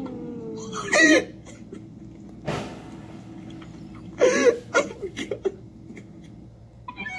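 A man laughing: one short burst about a second in, a breathy puff, then a run of choppy laughs around four to five seconds in.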